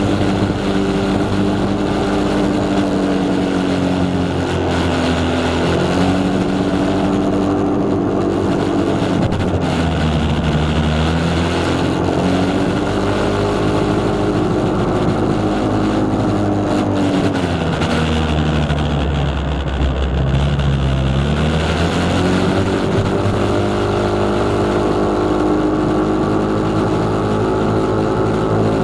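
Yamaha Cygnus X scooter's 125 cc single-cylinder four-stroke engine running under way, over a steady rush of wind and road noise. The engine pitch falls and climbs back twice, about ten seconds in and again around eighteen to twenty-one seconds, as the scooter slows and picks up speed again.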